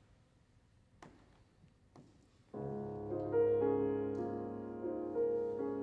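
Bösendorfer grand piano starting to play slow, held chords about halfway in, after a quiet pause broken by two faint clicks.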